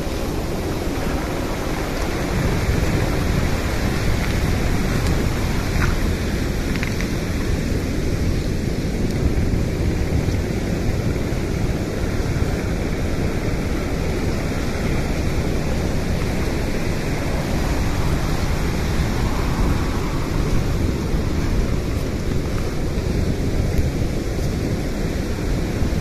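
Shallow surf washing over a pebble and rock shore: a steady rush of water with foam swirling among the stones.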